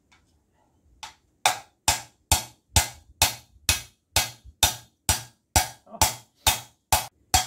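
A hammer tapping steadily on a driver, about two strikes a second after a quiet first second, each blow ringing like metal. The taps are seating a new Chevrolet Aveo wheel bearing into its housing, and the bearing is going in easily.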